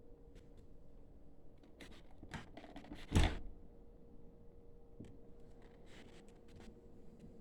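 A run of light clicks and rustles with one louder thump about three seconds in, then more scattered clicks, over a faint steady hum.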